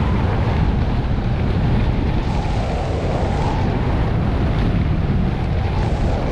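Wind buffeting a GoPro Hero 8 Black's microphone on a fast ski run, a loud, steady low rush. Underneath it the hiss of Atomic Redster G9 ski edges carving on groomed snow swells with the turns.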